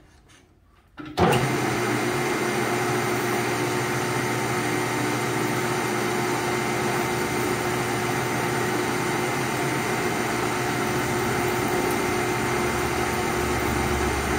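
Metal lathe switched on about a second in, its motor and gearhead then running steadily with a constant hum and whine as the chuck spins a .50 BMG bullet.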